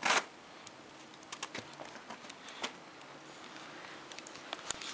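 A Lhasa Apso's claws clicking and pattering lightly and irregularly on a hard floor, after a short loud rustle at the very start.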